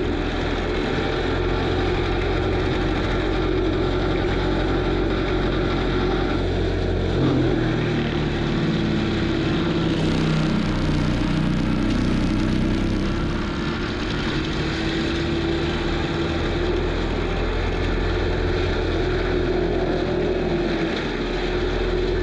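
Kubota SVL95 track loader's diesel engine running hard while driving an FAE forestry mulcher head, with a steady whine from the mulcher drive. The sound roughens and turns brighter for a few seconds about ten seconds in.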